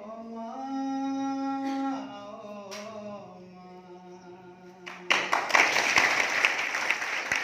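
A man sings slowly, holding long drawn-out notes. About five seconds in, the audience breaks into applause as he finishes.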